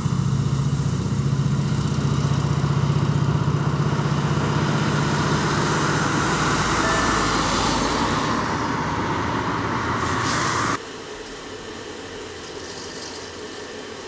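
Street traffic noise with a motor vehicle's engine running close by, steady and loud, cutting off abruptly about eleven seconds in to a quieter steady hum.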